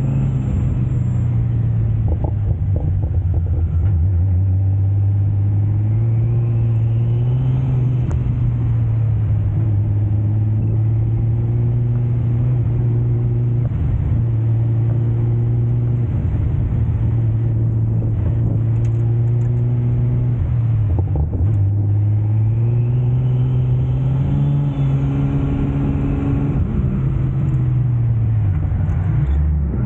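Nissan S14 drift car's RB25 straight-six engine running under load, heard close up from on board the car. Its pitch holds fairly steady with slow rises and falls, and drops briefly about 14, 21 and 29 seconds in.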